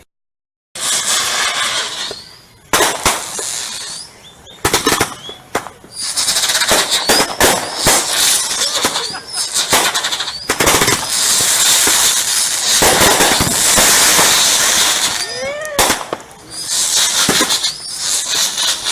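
Consumer fireworks going off in a dense barrage, after a split second of silence at the start. There is rapid crackling and popping with sharp bangs, and shrill whistles that glide up and down in pitch. It is heaviest from about six seconds in, with a short lull near the end.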